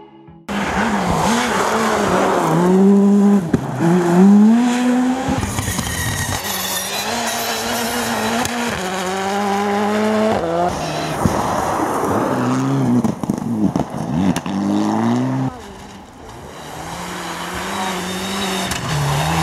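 Rally cars driven flat out on a snow-covered stage, one after another, engines climbing in pitch and dropping sharply at each gear change.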